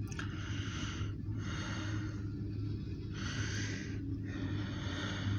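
Heavy breathing close to the microphone, a breath about every second and a half, over a steady low hum.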